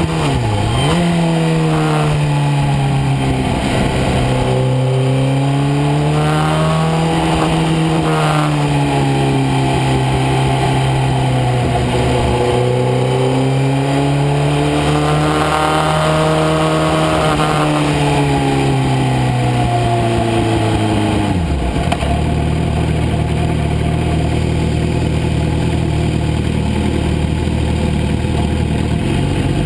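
Onboard sound of a racing sport bike's engine at light throttle, its pitch swinging slowly up and down, with a steady rush of wind on the microphone. A sharp dip and recovery in pitch comes right at the start, and about three quarters of the way through the engine drops to a steady low note.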